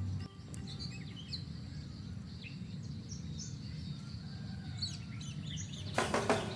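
Small birds chirping and tweeting in short scattered calls over a steady low rumble, with a louder noisy burst near the end.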